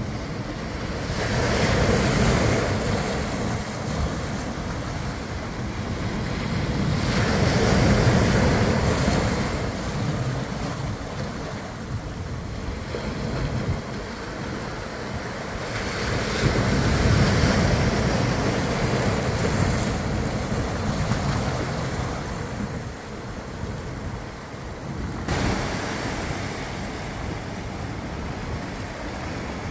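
Ocean surf breaking on a sandy beach, the wash swelling and fading in long surges every several seconds, with wind rumbling on the microphone.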